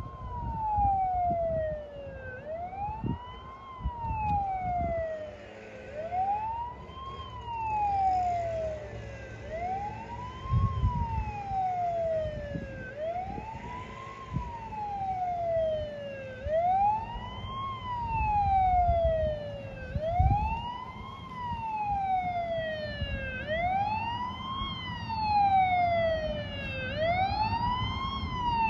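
Emergency vehicle siren wailing, slowly rising and falling about once every three and a half seconds. In the last few seconds a second siren cycles over it.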